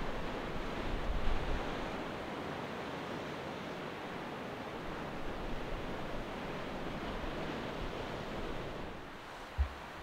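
Steady rush of wind and choppy sea, with wind buffeting the microphone in low rumbles that are strongest about a second in. A short low thump comes near the end.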